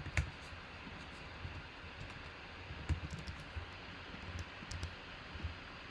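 Scattered clicks and taps of typing on a computer keyboard, irregular, with one sharper click just after the start.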